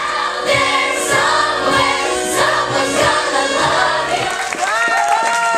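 A chorus of children's voices singing a stage-musical number over backing music, with long held notes; near the end a few sustained sung notes stand out clearly.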